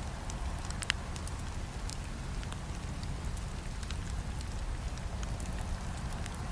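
Burning wood fire crackling: scattered sharp pops and snaps, the loudest about a second in, over a steady low rumble of the flames.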